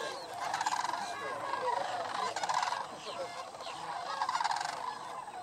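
A large flock of sandhill cranes calling together: many rolling, rattling calls overlap in a continuous chorus that swells and eases every second or so.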